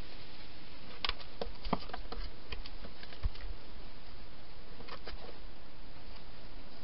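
Scattered light clicks and taps from a wild hedgehog moving about in a clear plastic feeding station, bunched in the first half with a couple more near the end, over a steady hiss.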